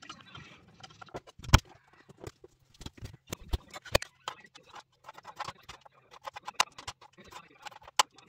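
Kitchen knife knocking on a wooden cutting board while vegetables are chopped by hand, in short irregular runs of knocks, with one louder knock about a second and a half in.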